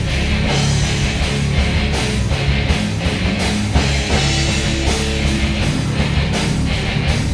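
Loud rock band jam: distorted electric guitar over bass and drums, with a steady beat of about two hits a second.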